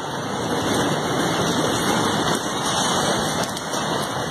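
Rain falling on a street, a steady even hiss.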